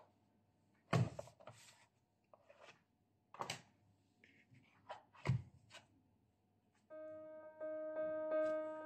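Handling sounds on a workbench: a few knocks, dull thuds and rustles as a white cardboard box is set down and a block of green carving wax is lifted out of it. Music with held notes comes in near the end.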